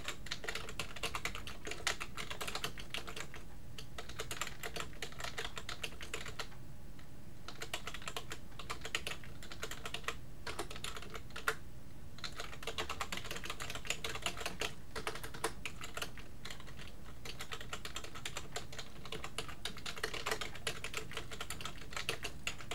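Typing on a computer keyboard: quick runs of key clicks broken by brief pauses, as a chat message is typed.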